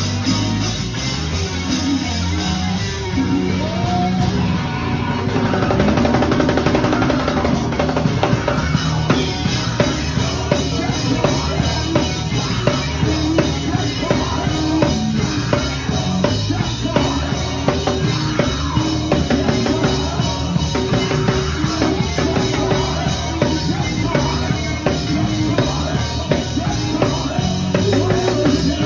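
Live band music driven by an acoustic drum kit played without a break: kick drum, snare and cymbals over a moving bass line.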